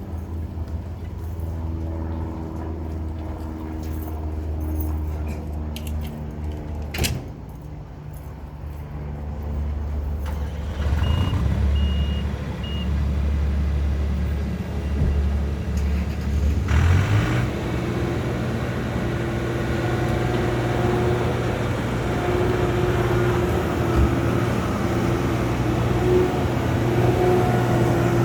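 John Deere 260 skid steer's diesel engine idling, then throttled up about halfway through and running steadily at higher revs. Three short high beeps sound shortly before the throttle-up, and there is a sharp click about a quarter of the way in.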